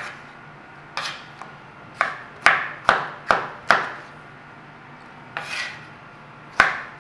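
Kitchen knife slicing bell peppers, the blade knocking down onto a chopping board in a quick run of about six cuts, then a short scrape and one more cut near the end. A steady low hum of a kitchen fan or extractor hood runs underneath.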